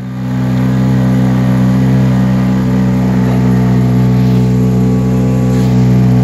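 Motorboat engine running at a steady speed, a constant low hum with several pitches stacked together. It swells over the first half-second, then holds level.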